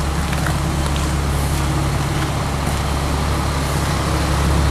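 Steady motor-vehicle engine and road noise: a constant low hum under an even rush, getting slightly louder near the end.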